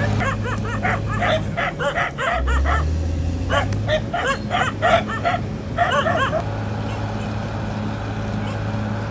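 Caterpillar D6R XL bulldozer's diesel engine running steadily, its note dropping briefly about two and a half seconds in. Over it, for the first six seconds or so, an animal gives a rapid string of short calls.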